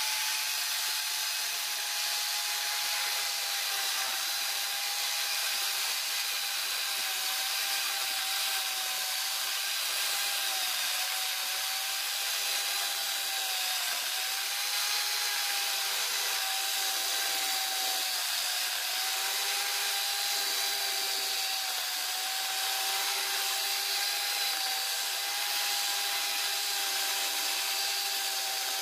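Angle grinder converted into a mini chainsaw, its chain cutting down through a beam of ironwood: a steady high motor whine over the rasp of the chain in the wood, the pitch dipping briefly about halfway as the cut loads it.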